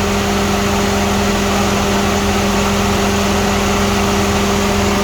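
Mega Truck idling with the electric fan for its Allison transmission oil cooler running, a steady even hum with two held tones. The fan is working normally again after a new relay.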